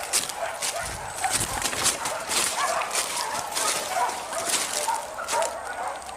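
Hunting dogs barking and yelping in short, overlapping calls, several a second.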